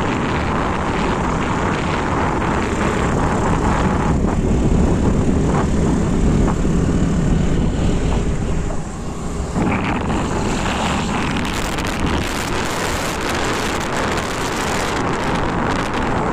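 Wind and road noise from a moving scooter, the wind buffeting the microphone. It eases briefly about nine seconds in, then picks up again with more hiss.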